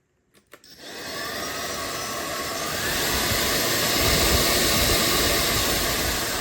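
AlloyMove cordless stick vacuum switched on with a click: its motor spins up within about half a second and then runs steadily with a high whine.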